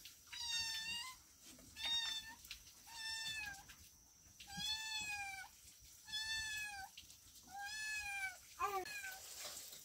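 A cat meowing over and over: about six high meows, each under a second, rising then falling in pitch, about one every second and a half, with a couple of shorter calls near the end.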